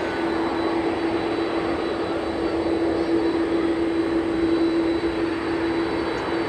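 Airbus A380-841's four Rolls-Royce Trent 970 turbofans at takeoff thrust as the airliner climbs out: a loud, steady jet roar with a steady hum running through it.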